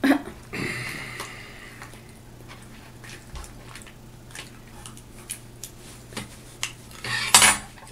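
Cooked lobster being taken apart by hand and with kitchen shears: scattered small clicks and cracks of shell, with a louder crunch near the end.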